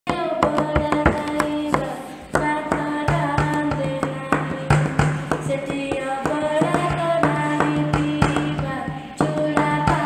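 Odia Jagannath bhajan ringtone music: a repeating melodic phrase over hand-drum beats and a steady drone. The music dips briefly about two seconds in and again near the end, as the short phrase loops.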